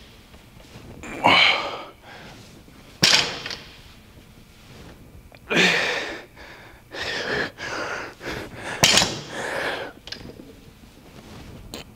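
Forceful exhales and grunts of effort from a weightlifter straining through reps: a series of hard, noisy breaths every second or two, some starting sharply.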